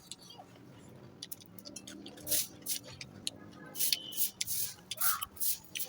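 Close-miked eating sounds: wet chewing and lip smacks in quick irregular bursts, louder and more frequent from about two seconds in.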